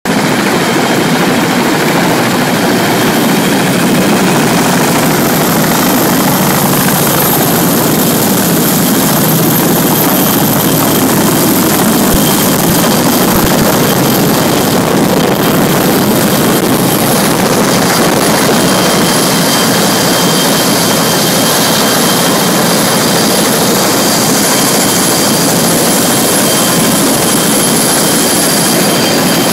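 Military helicopters' turbine engines and rotors running on a ship's flight deck: a loud, unbroken rush with a steady high whine on top.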